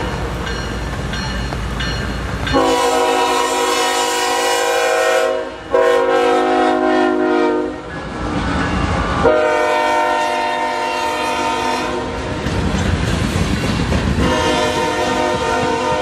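CSX freight locomotive's air horn sounding four long chord blasts as the train passes close by. Between blasts, the low rumble of the locomotive and the wheels of covered hopper cars clacking over the rail joints.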